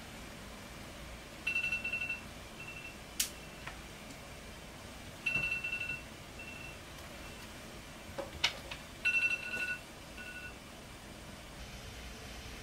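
Electronic beeping from a household device: a short group of high two-tone beeps, repeated three times about every four seconds. Two sharp clicks fall between the groups.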